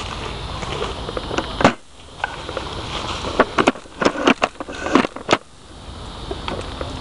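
Wind and handling rumble on a moving camera as a person pushes through brush, with a quick run of about eight sharp snaps or clicks in the middle.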